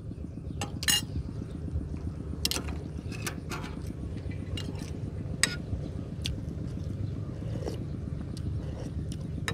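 Metal spoon clinking now and then against china plates and bowls as someone eats, a dozen or so sharp separate clinks over a steady low hum.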